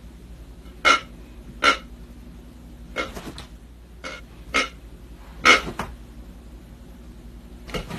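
A dog giving about seven short, breathy huffs at uneven intervals, the loudest about five and a half seconds in.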